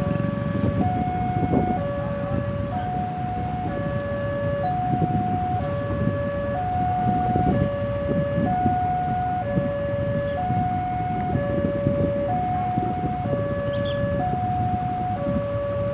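Railway level-crossing warning alarm sounding a two-tone hi-lo signal, each tone held about a second, repeating steadily over the rumble of waiting road traffic: the crossing is closed for an approaching train.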